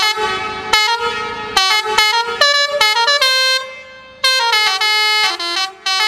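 Basuri musical air horn on a mini truck playing one of its preset melodies: a run of held horn notes stepping up and down in pitch, with one note fading away about four seconds in before the tune picks up again.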